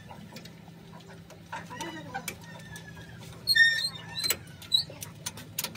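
Short metallic clicks and clinks of hand tools on a truck's open gearbox housing over a steady low hum, with a bird's chirps about three and a half seconds in as the loudest sound.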